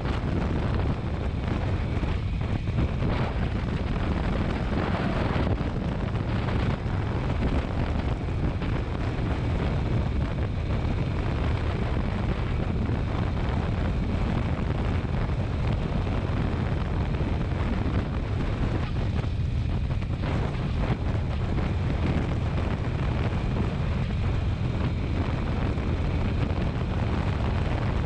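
Motorcycle on the move: a steady rush of wind over the microphone with the engine running underneath.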